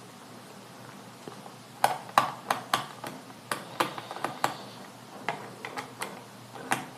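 About a dozen sharp clicks and taps of hard plastic at irregular spacing, beginning nearly two seconds in, from a laptop being handled or its keys pressed.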